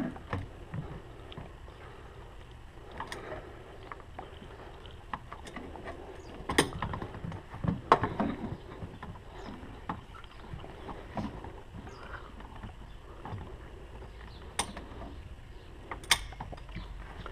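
Scattered sharp clicks and knocks of pliers and a metal hose clamp against the plastic coolant reservoir fitting, as the bottom hose clamp is worked by hand.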